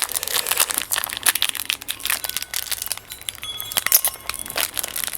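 Foil trading-card booster pack crinkling and crackling as it is handled and opened, a dense run of sharp little crackles.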